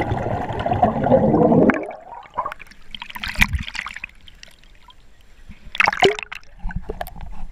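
Muffled underwater rumble and bubbling of water moving around the camera, fading after a couple of seconds. Then two short splashes, about three seconds in and again about six seconds in, as the camera breaks through the surface.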